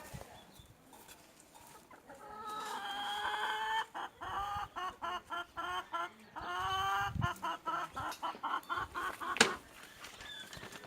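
Chicken calling: a drawn-out note followed by a run of quick clucks, heard twice over. A single sharp knock comes near the end.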